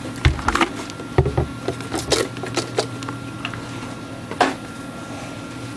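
Paper towel rubbing as small cuckoo clock hands are wiped with cleaner, with a quick run of light clicks and taps and two dull knocks in the first few seconds, then one more click later on.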